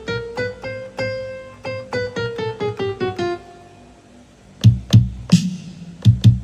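Akai MPK Mini Play's built-in electric piano sound playing single notes, about four a second, in a run that climbs and then comes back down. After a short pause, its built-in drum sounds start: a few loud kick and snare hits.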